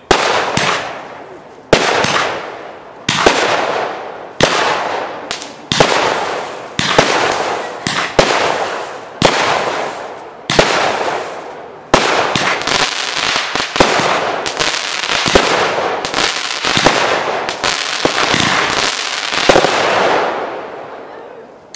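Brightsky 'Full Force' firework firing shot after shot. For the first twelve seconds there is a sharp bang about every second and a half, each trailing off in a fading fizz of burning stars. Then the shots come faster and overlap into a dense volley for the last several seconds before dying away.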